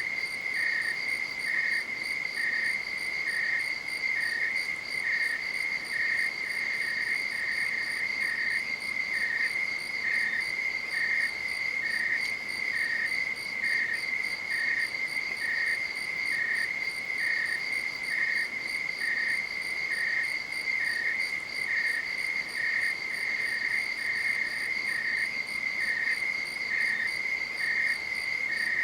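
Night-time insects, crickets, calling: one steady high trill goes on without a break while a second insect chirps at an even beat, about once a second.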